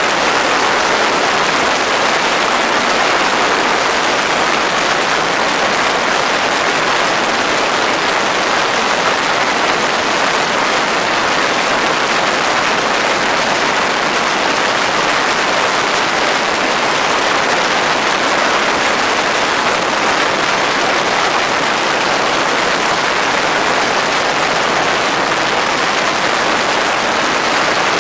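X'Air microlight's engine and propeller running steadily at high power on a static run-up, heard as a loud, even rush of noise with no change in pitch. After the propeller pitch adjustment it reaches only about 5900 rpm, not enough power.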